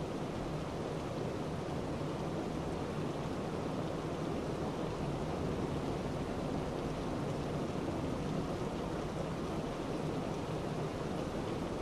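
Steady, even hiss with a faint low hum underneath, unchanging throughout, with no distinct events.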